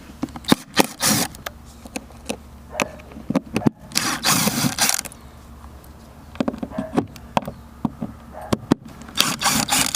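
Scattered clicks and knocks with a few short, rough scraping rustles as the old bungee rod tie-down hardware is worked loose and pulled off the boat's deck.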